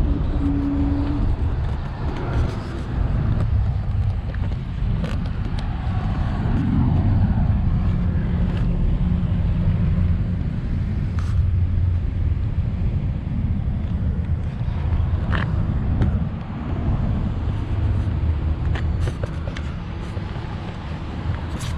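Road vehicles running: a steady low rumble with a few short clicks.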